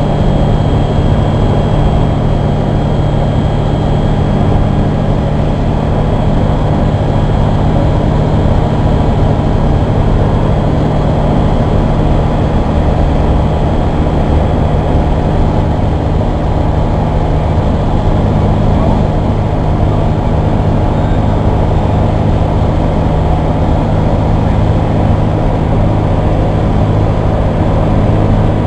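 Kitfox light aircraft's piston engine and propeller droning steadily, heard from inside the cockpit in a descent.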